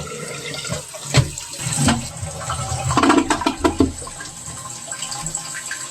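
Push-button toilet flushing: water rushes from the cistern into the bowl, with a few knocks in the steady rush. It is a test flush after the refill tube inside the cistern has been repositioned to raise the bowl's water level.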